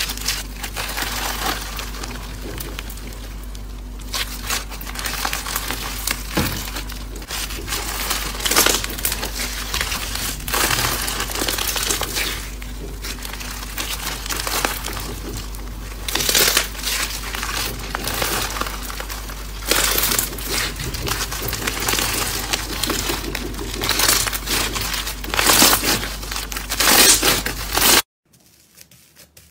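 Foam-bead slime (floam) squeezed and kneaded by hand: dense crackling and crunching as the beads are pressed together, surging louder with each squeeze, over a low steady hum. It cuts off suddenly near the end.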